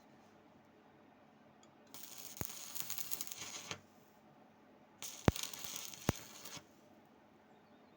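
Two short bursts of stick-welding arc crackle, each about a second and a half long, with sharp clicks as the arc strikes and sputters; the second burst has the loudest click.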